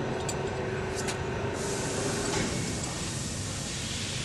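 Steady machine hum in a workshop, with a hiss like escaping air setting in about a second and a half in. A couple of faint clicks come in the first second.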